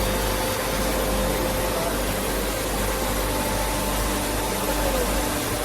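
Steady mechanical hum and hiss of running machinery, with a low drone and a faint steady tone.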